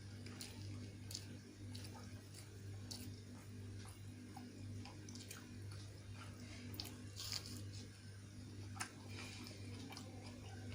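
A person chewing beef biryani with the mouth close to the microphone: faint, irregular wet smacks and clicks of eating, over a steady low hum.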